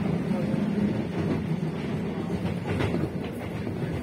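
Keisei 3000 series electric train running between stations, heard inside the passenger car: a steady rumble of wheels on rails with a low hum.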